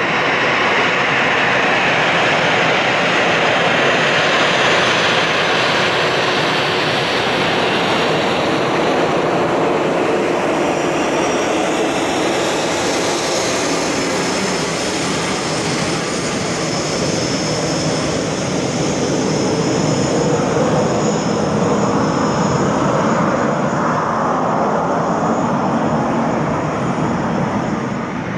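Jet airliner engines running loud and close, a heavy steady rush of noise; about twelve seconds in, a high-pitched turbine whine joins it.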